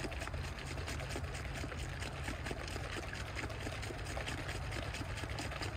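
Wash liquid sloshing and pattering inside a varroa mite wash jar as it is shaken by hand, with many quick small splashes and a steady low rumble underneath.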